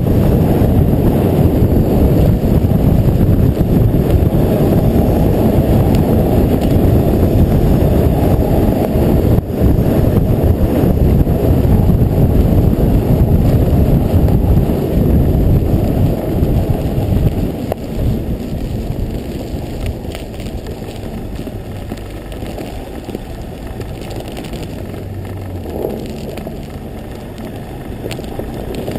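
BMW E46 330d Touring driving on a frozen lake: a loud, steady low rumble of tyres and wind noise with no clear engine note, easing down a little over halfway through.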